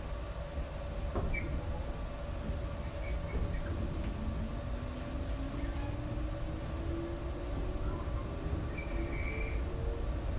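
JR Shikoku 121 series electric train running, heard from inside the car: a steady low rumble of wheels on rails with a constant hum. From about four seconds in, a whine rises steadily in pitch as the train gains speed.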